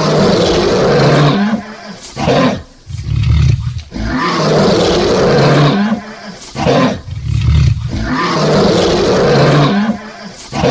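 Lion roaring: three long roars about four seconds apart, each followed by a couple of short grunting bursts.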